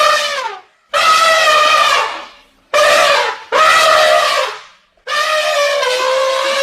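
African elephant trumpeting: a series of five loud calls with short gaps, the last held longest, over two seconds.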